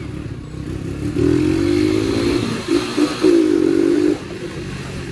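A Yamaha YBR motorcycle's single-cylinder engine running under way. About a second in, the throttle opens and the engine revs up louder and rising for about three seconds, with a couple of short dips partway through, then drops back to a lower, quieter running note.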